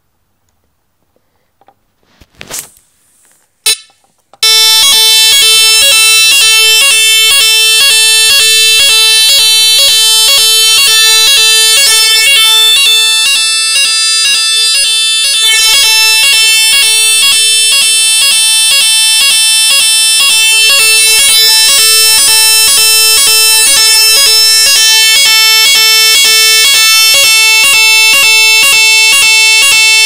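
AVSU PZ fire-alarm sounder powered from a battery: after two faint clicks, about four seconds in it starts sounding the French fire-alarm tone, a loud, high buzzing tone that holds without a break.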